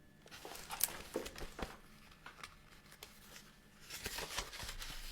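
Picture-book pages rustling and crinkling as they are handled and turned, with a few soft clicks. A longer rustle comes about four seconds in.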